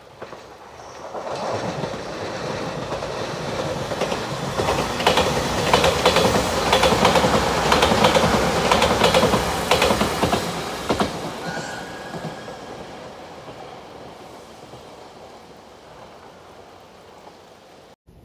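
Electric express train passing a level crossing. The sound builds as it approaches and peaks with a rapid clickety-clack of the wheels over rail joints, then fades away as it recedes.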